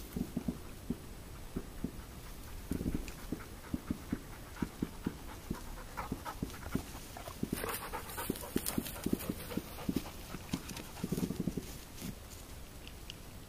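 A pointing dog panting in quick short breaths, with footsteps and rustling through dense scrub; a louder rustle of brush comes about halfway through.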